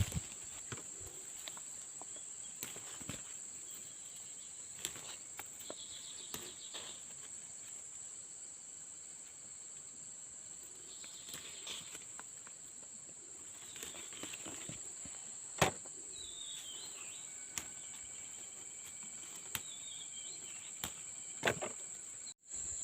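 Steady high-pitched chirring of insects, crickets or cicadas, with scattered sharp clicks and light rustles. A few short descending bird chirps come about two-thirds of the way in.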